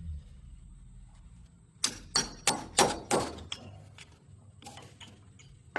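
Five quick hammer blows on metal, about three a second, each with a short ring: knocking the John Deere 1020's PTO shaft assembly loose. A couple of faint taps follow.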